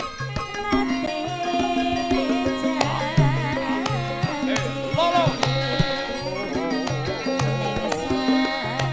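Javanese gamelan music of the kind played for tayub: regular hand-drum strokes under repeated low held tones, with a wavering melodic line in the middle.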